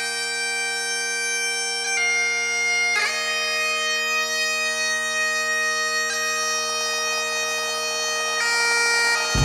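Bagpipe music: a slow melody of long held notes over the pipes' steady drones.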